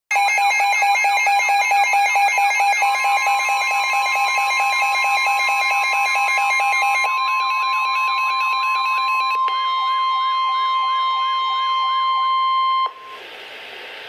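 Weather radio alert alarm: rapid repeating electronic beeps and warbles over a steady tone near 1 kHz, the NOAA 1050 Hz warning-alarm tone that marks a warning broadcast. The beeping drops away in stages, and the tone cuts off suddenly about a second before the end, leaving faint radio hiss.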